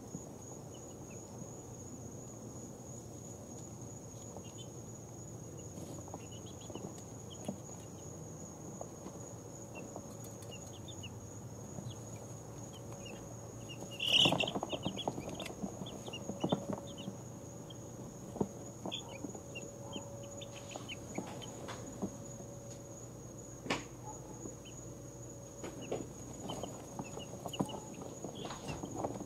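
Two-week-old chicks peeping softly in a brooder. About halfway through, one loud peep and a rustle as a chick stirs. After that the peeps come more often, with scratching and rustling in the bedding as the chicks wake and get up.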